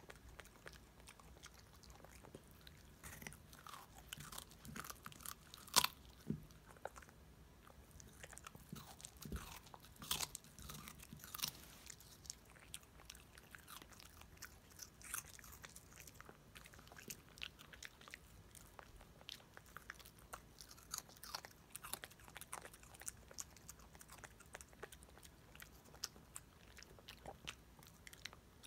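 Schnauzer chewing and crunching a raw radish, with irregular crisp bites. The loudest crunch comes about six seconds in.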